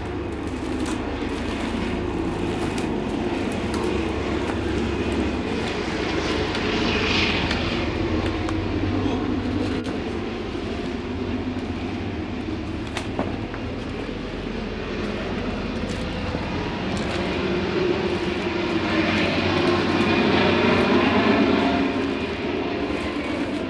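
A steady low rumble that swells a little around the middle and again near the end, with faint footsteps and crunching as people walk over a floor littered with paper and debris.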